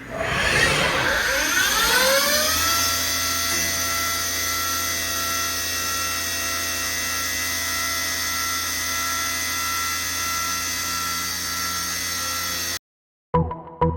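CNC mill spindle spinning up, its whine rising in pitch over about two and a half seconds, then running at a steady high speed. The sound cuts off abruptly near the end, and music follows.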